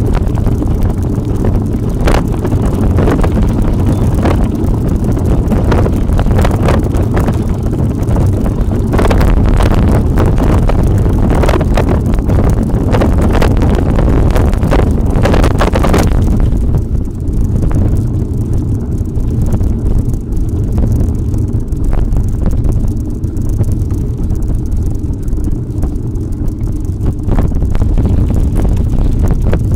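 Wind buffeting the microphone of a camera on a mountain bike riding off-road, over a heavy low rumble, with frequent sharp clicks and knocks from the bike over rough ground. The clicking and the hiss ease about 16 seconds in.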